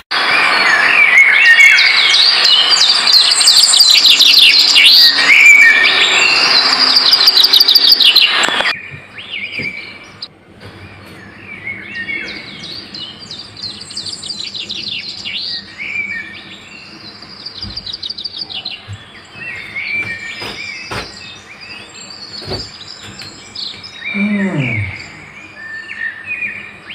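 Many small birds chirping and calling, loud for the first eight or nine seconds and then abruptly much quieter, continuing in the background. A few soft knocks come from handling the bag and clothes, and near the end a short sound slides down in pitch.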